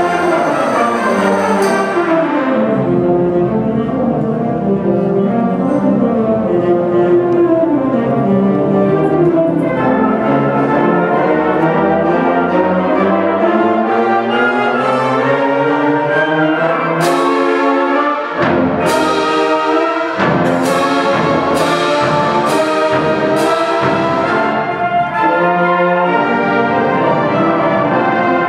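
Symphonic wind band playing loud sustained brass and woodwind chords. About two-thirds of the way in comes a run of sharp accented strikes roughly a second apart.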